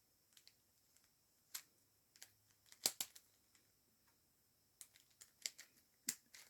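A few faint, sparse plastic clicks and taps from handling a speed cube, the loudest a quick double click about three seconds in.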